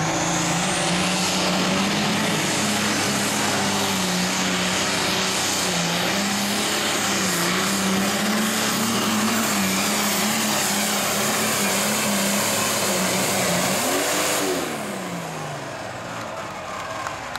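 Turbocharged diesel engine of a red International Harvester super stock pulling tractor running at full throttle under heavy load while dragging the sled: a steady, wavering drone with a high whine above it. About fourteen seconds in, the engine note rises and falls and the sound drops off as the pull ends.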